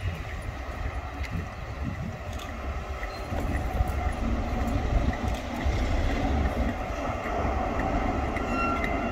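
HST Class 43 diesel power car running as it leads its train slowly past, with its coaches rolling over the track. The rumble grows louder from about three and a half seconds in.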